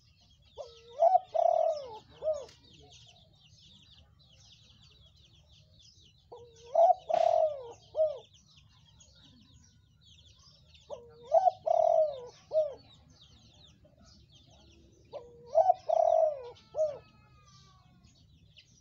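Spotted dove cooing: four phrases about four to five seconds apart, each a quick run of a few low, rounded coo notes.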